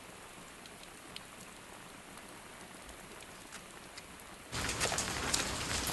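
Rain falling, faint and even at first, then much louder from about four and a half seconds in, with many sharp drops hitting.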